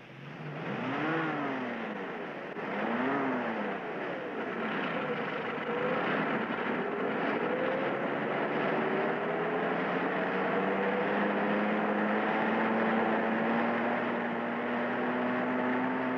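Cartoon engine sound of the Mach 5 racing car: two pitch sweeps up and back down in the first few seconds, then a steady engine whine that climbs slowly in pitch, over a rushing noise of water spray.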